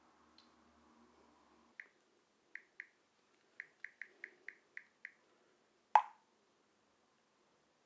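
Smartphone touchscreen keyboard tap sounds: about ten short, high clicks at an uneven typing pace. About six seconds in comes a louder single pop, the phone's message-sent sound.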